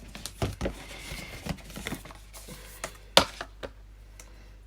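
Handling noise from the Apple Watch packaging and band pieces: a scattering of light taps and clicks, the sharpest about three seconds in.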